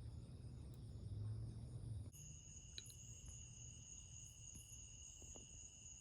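Faint, steady trilling of crickets, with a low rumble underneath for the first two seconds. About two seconds in the sound changes abruptly and the insect tones carry on at new pitches.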